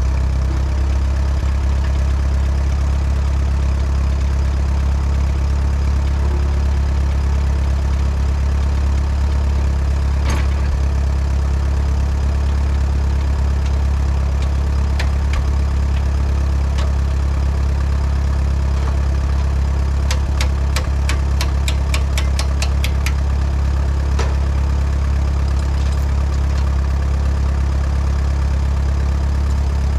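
Allis-Chalmers WD tractor's four-cylinder engine running steadily. A quick run of clicks or rattles comes about twenty seconds in.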